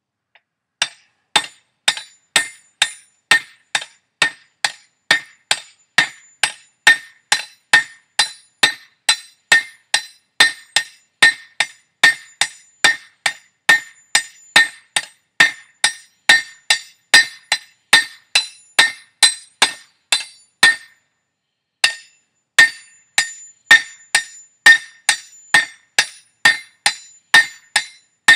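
Hand hammer striking hot steel on an anvil, forging a large knife blank: a long even run of ringing blows, about two a second, with a brief pause about three-quarters of the way through.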